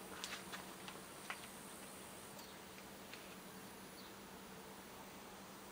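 Faint fizzing and crackling from nitric acid reacting with iron powder in a glass beaker on a hot plate, giving off nitrogen dioxide gas. A few small pops come in the first second and a half, over a steady low hum.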